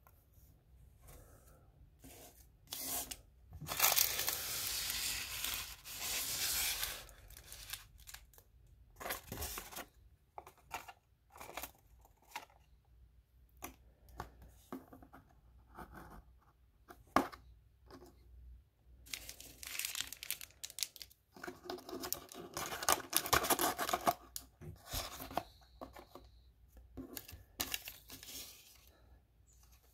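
Hands handling a lubricated latex condom on a banana and its foil wrapper: rustling, rubbing and crinkling, with two longer loud crinkly stretches about four seconds in and about twenty seconds in, and scattered small taps and clicks between.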